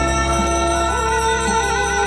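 A pair of Tibetan gyaling (double-reed oboes) playing a held, ornamented melody with wavering trills, over a steady low drone.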